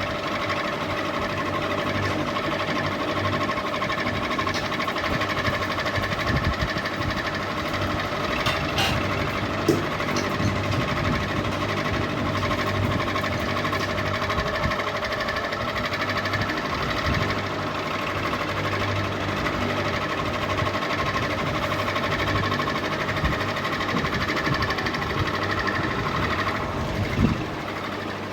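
Ceiling fan running with a steady whine over a continuous low rattle, with a sharper knock near the end.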